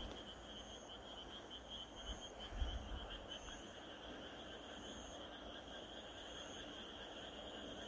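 A night chorus of insects: a steady high trill, pulsing rapidly at first, with shorter, higher calls coming and going. There is a low bump about two and a half seconds in.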